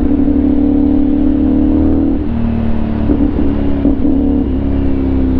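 CFMOTO 450NK parallel-twin engine running through an Orion Ara slip-on exhaust while riding in traffic. The engine note holds steady, drops slightly about two seconds in, then wavers up and down with small throttle changes.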